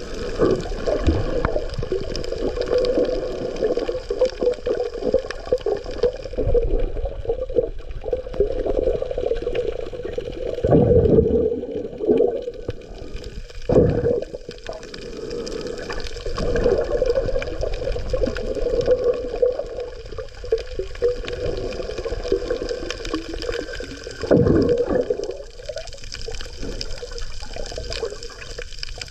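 Muffled underwater water noise picked up by a camera below the surface while snorkeling: a steady swirling wash, with several louder surges.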